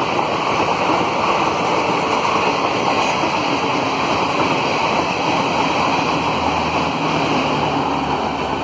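ICF passenger coaches of an express train running past at full speed: a loud, steady rush of wheel and rail noise, with the last coach going by near the end.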